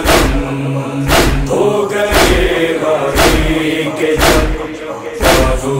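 Male voices chanting a noha refrain in a held, droning line, with a sharp deep thump about once a second, in the manner of matam chest-beating.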